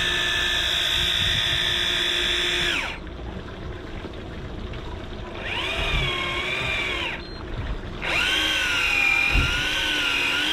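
Electric fishing reel's motor whining in three bursts: a steady one of about three seconds, then two shorter ones whose pitch wavers up and down. The short bursts of winding keep the bottom rig moving off the rocky seabed in a strong tide.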